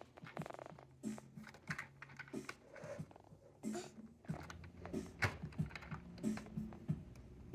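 Irregular light clicks and knocks of hard plastic toy-kitchen parts being handled, as a white plastic toy faucet is fitted onto the toy sink.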